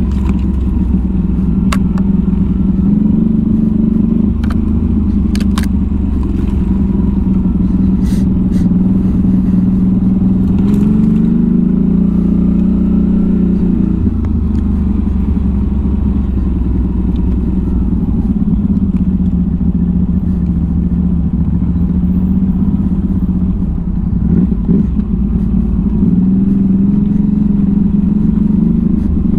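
1000 cc V-twin ATV engine running steadily, its pitch rising as it revs up a little under halfway through and again near the end. A few sharp knocks and rattles from the machine jolting over rough ground.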